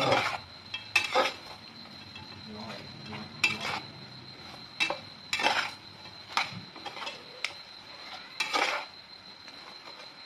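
A long metal spatula scrapes and clinks against an aluminium pot while stir-frying duck with lemongrass and chilli. The strokes come irregularly, roughly one a second, over a low sizzle from the hot pan.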